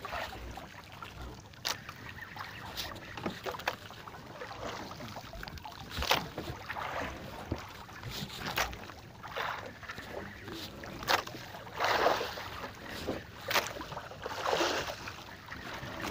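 Water splashing and sloshing at the side of a small outrigger fishing boat, rising in uneven surges, with scattered sharp knocks and clicks.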